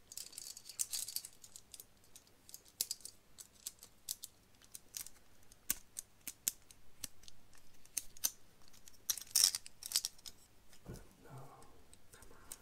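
Scattered light clicks and small clatters of hard plastic and metal parts being handled while a new chainsaw is assembled, with a louder clatter about nine seconds in.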